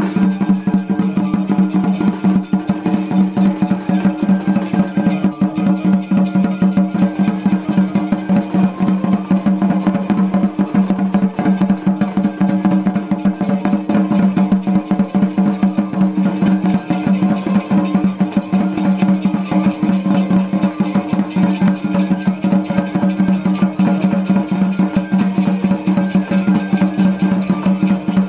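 Traditional Purulia Chhau dance music: fast, continuous drumming under a sustained melodic line that holds steady throughout.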